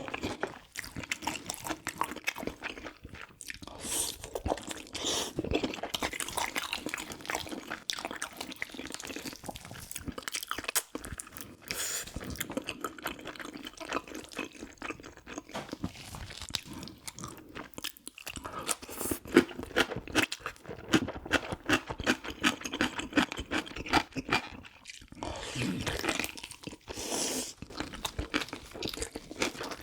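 Close-miked chewing of soy-braised pig's trotters (jokbal) and kimchi: repeated crunches and wet mouth clicks at an irregular pace.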